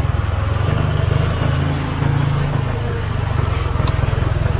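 A công nông farm truck's diesel engine chugging steadily at close range while driving, its note shifting briefly near the middle.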